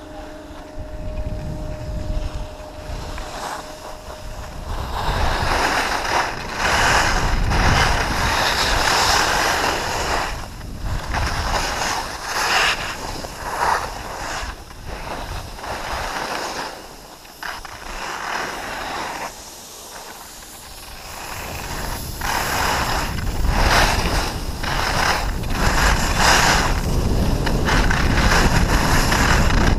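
Wind buffeting the microphone of a camera on a fast-moving skier, with the hiss and scrape of skis on packed snow that swells and fades with each turn.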